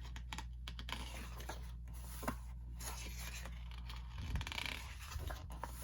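Pages of an album photobook being handled and turned: paper rustling and sliding with small clicks, and a low handling bump about four seconds in.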